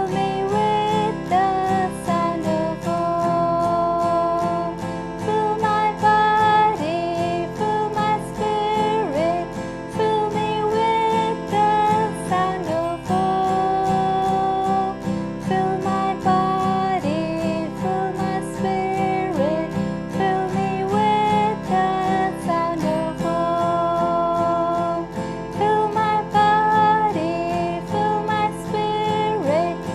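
Acoustic guitar strummed in steady downstrokes, switching between F major and C major chords, under a voice singing a slow chant melody.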